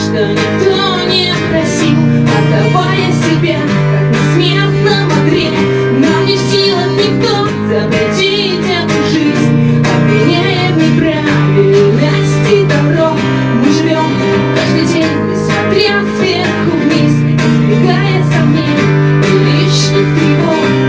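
Acoustic guitar strummed steadily, playing a rock song, with a melodic line moving over the chords.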